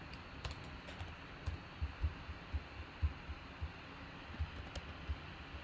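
Computer keyboard being typed on: soft, irregular taps and thumps with a few sharper clicks.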